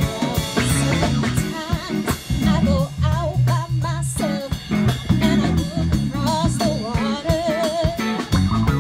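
Live band playing a soul-funk song: a woman's lead vocal with a wavering vibrato over electric guitar, electric bass and drum kit.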